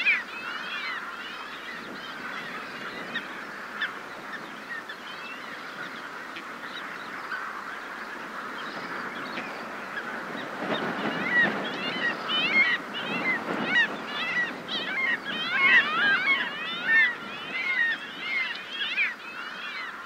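Several Arctic skuas calling in flight, many short calls overlapping and busiest in the second half. Underneath runs a skylark singing and a steady wash of sea and wind, which swells about halfway through.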